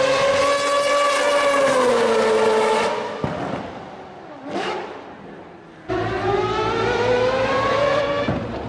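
High-revving racing car engines passing at speed. One loud engine note starts abruptly and falls in pitch as it goes by, and another car sweeps past briefly about four and a half seconds in. About six seconds in a second loud engine cuts in, its pitch climbing under acceleration before dropping near the end.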